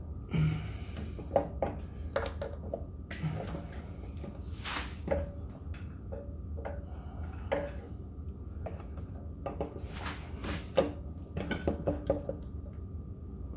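Scattered metal clinks and knocks as an electric scooter's rear wheel and axle are handled and worked back into the swingarm, over a faint steady hum.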